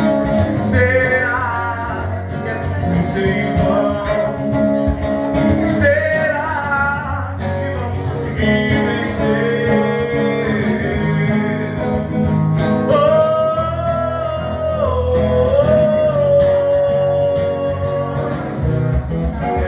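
Live forró music from a band: a melody line with singing over a steady beat.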